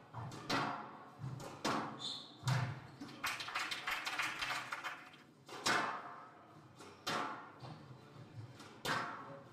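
Squash rally: the rubber ball struck by rackets and smacking off the court walls, sharp impacts at irregular intervals of about half a second to a second, each echoing around the hall.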